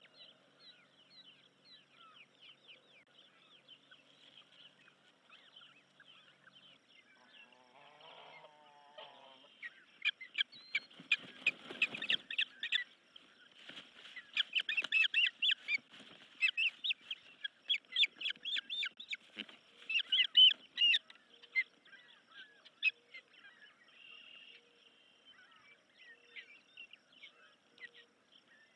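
Adult ospreys calling at the nest: a long, rapid series of loud, sharp, high chirps that begins about a third of the way in, as one of the pair lands on the nest, and dies down after about ten seconds. Fainter chirping comes before and after.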